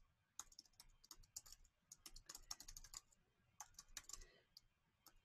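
Faint typing on a computer keyboard: quick, irregular key clicks in short runs with brief pauses between them.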